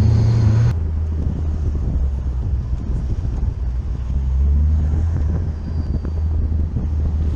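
Car engine running at low revs while the car rolls slowly, heard from a camera mounted outside on the front wing: a steady low rumble. A louder, fuller stretch of engine sound cuts off abruptly under a second in.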